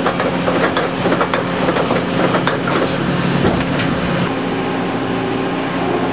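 Mitsui Seiki HU63A horizontal machining center running under power: a steady mechanical hum with a dense clatter of clicks and knocks that thins out about four seconds in, leaving a steadier running noise.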